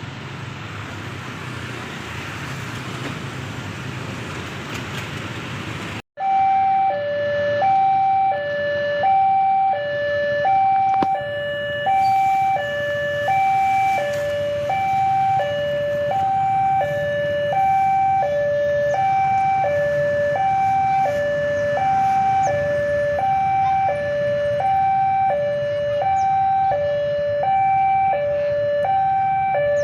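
Railway level-crossing warning alarm: an electronic two-tone signal stepping high-low about once a second, sounded while the crossing closes for an approaching train. It starts after a sudden break about six seconds in; before that there is steady mechanical noise.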